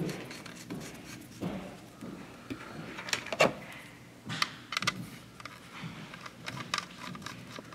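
Light plastic clicks and knocks, scattered and irregular, as the white plastic antennas of a TP-Link EAP225 Outdoor access point are picked up and fitted onto its housing.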